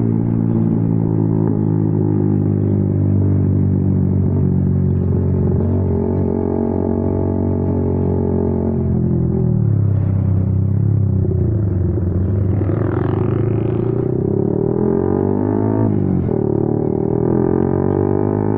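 Honda CB150R's single-cylinder engine running through a WRX Trioval K2 aftermarket exhaust while riding. It holds steady revs, drops off about nine seconds in, then climbs again, with a short dip near sixteen seconds like a gear change before rising once more.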